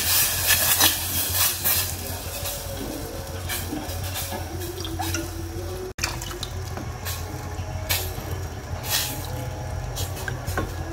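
Plastic spoon stirring a milk mixture in a steel saucepan: liquid sloshing and the spoon scraping against the pot in short strokes, over a steady low hum. The first couple of seconds are louder.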